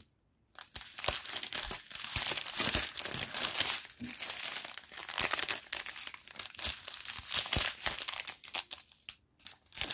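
Clear plastic bags of diamond painting drills crinkling as they are handled and sorted by hand: a dense, steady crackle that begins about half a second in and breaks off briefly near the end.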